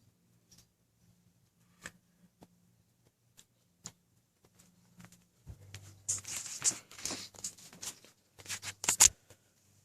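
Handling noise: a few faint clicks, then from about halfway in a stretch of rustling and scraping with sharp clicks, loudest near the end.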